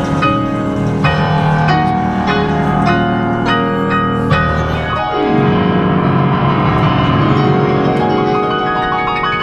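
Piano music played on a digital piano: quick runs and chords, with a falling glide in the lower notes about five seconds in.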